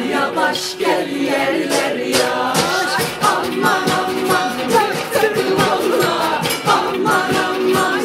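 A mixed group of voices singing a Turkish folk-style chorus together over a steady beat struck on kitchen pots and pans.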